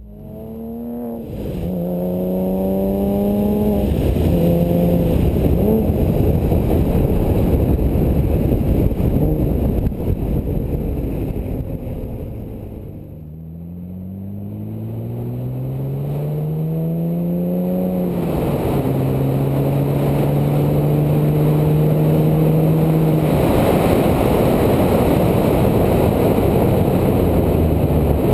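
Porsche Cayman's flat-six through a GMG World Challenge cat-back sport exhaust, accelerating: the note climbs and drops with quick upshifts about two and four seconds in, eases off around twelve seconds, then climbs again to another upshift near eighteen seconds and runs on steadily.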